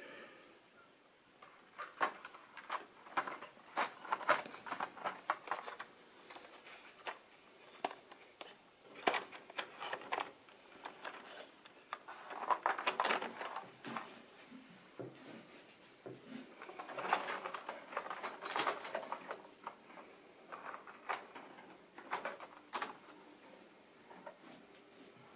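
Plastic model railway coaches being handled and set onto the track by hand: irregular clicks and clatters of wheels and couplings against the rails, in several bursts.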